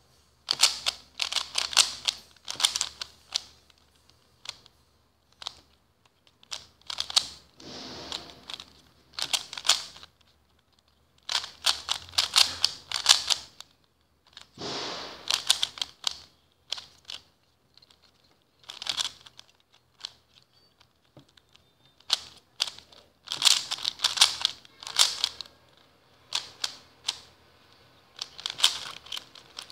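Rubik's cube being turned fast by hand: bursts of quick plastic clicks and clacks as the layers snap round, with short pauses between the bursts.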